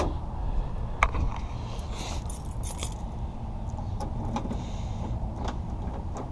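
Keys jangling, with scattered small metallic clicks and a cluster of them about two to three seconds in, as a key is worked in a truck door lock whose key has broken. A steady low rumble runs underneath.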